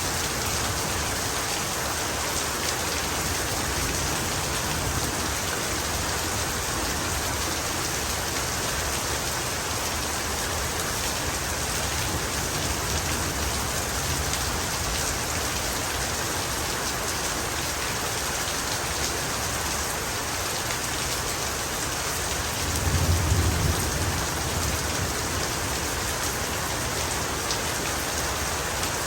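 Heavy rain falling steadily, with a brief low rumble of thunder about three-quarters of the way through.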